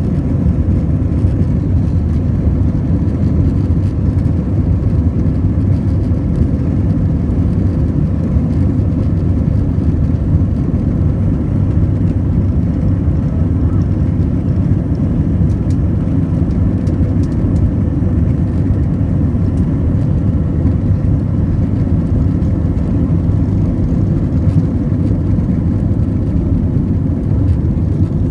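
Airplane engines during takeoff: a loud, steady low rumble with a faint steady hum above it.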